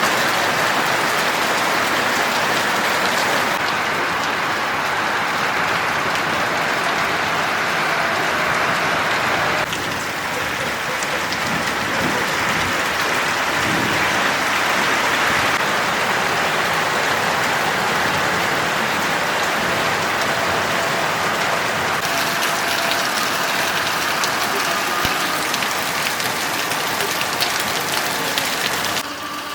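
Heavy rain pouring down, a dense steady hiss. Its level and tone shift abruptly several times.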